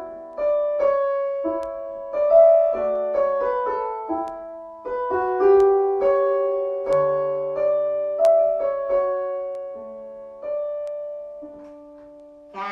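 Piano playing a slow phrase of single notes and chords, each struck note ringing and fading away, growing softer near the end on a held low note.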